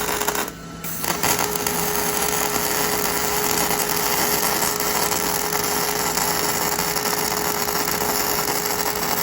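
Handheld electric drill running steadily with a constant motor whine, boring bolt holes in a steel beam; it eases off briefly about half a second in, then runs on and stops at the end.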